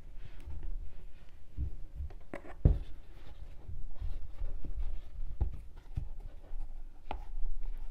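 Crochet handling noise: a hook and macrame cord rubbing and rustling as stitches are worked, with a few soft knocks, the loudest about two and a half seconds in.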